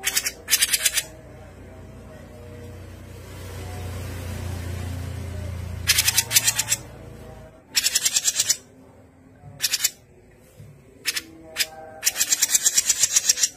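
Caged cucak jenggot (grey-cheeked bulbul) giving harsh, rapid chattering bursts, each a fast rattle of about ten notes a second, repeated several times with the longest near the end. A low rumble swells and fades in the middle.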